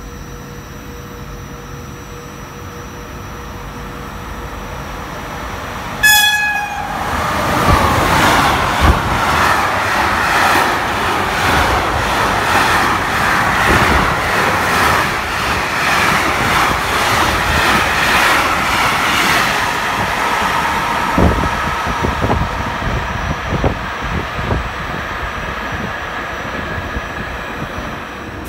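Container freight train running through the station: a short horn blast about six seconds in, then the wagons pass with a loud rush of wheel and rail noise and rhythmic clatter, easing off near the end.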